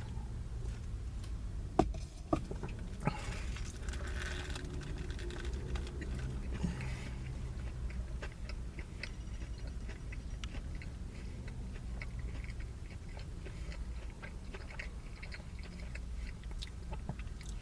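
A person chewing bites of a crispy fried chicken sandwich, with a few sharp crunches about two and three seconds in and small mouth clicks throughout. A steady low hum lies underneath.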